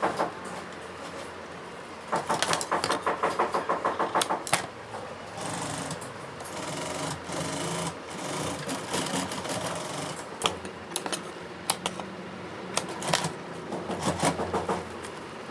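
Industrial single-needle sewing machine stitching jacket panels in bursts. A fast run of even stitches starts about two seconds in and lasts until nearly five seconds. Quieter stretches of machine hum follow, broken by shorter stitching bursts near the end.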